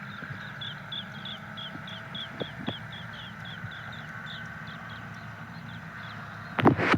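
Birds calling in a garden: a short high chirp repeated about three times a second, over a steady background hum. A loud thump near the end.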